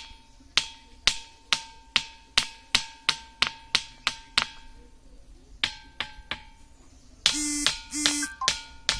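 Ringing rock (lithophone boulder) struck over and over with a hand-held stone: about three sharp clacks a second, each leaving a short bell-like, iron-sounding ring, with a pause around the middle. Two short, loud pitched sounds cut in near the end before the strikes start again.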